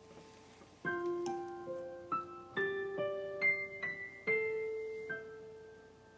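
Background music: a slow solo piano introduction, about ten notes struck one after another and left to ring and fade, dying away near the end.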